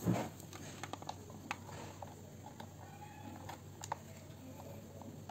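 Faint, scattered clicks and knocks of plastic connectors and cables being handled and pressed onto a floppy drive emulator's 34-pin header.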